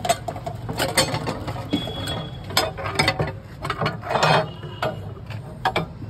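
Metal lid, crossbar and hand-crank gearing of a traditional wooden-bucket kulfi churn being fitted and worked: irregular metallic clanks and clicks, with a longer scrape about four seconds in.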